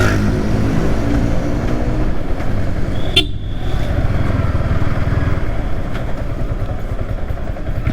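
Yamaha R15 V3's 155 cc single-cylinder engine running while the motorcycle is ridden, with steady wind and road noise. A brief high tone sounds a little over three seconds in.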